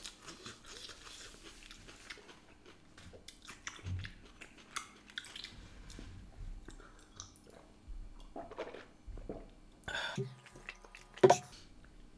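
Quiet chewing and mouth sounds, with scattered small clicks and a brief louder sound near the end.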